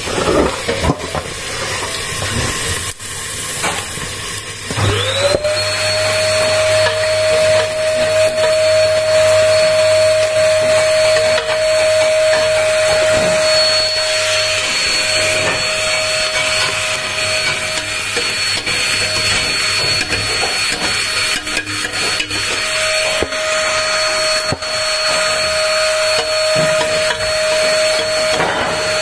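An electric motor appliance switches on about five seconds in, spinning up within half a second and then running steadily with a held whine over a rushing hiss.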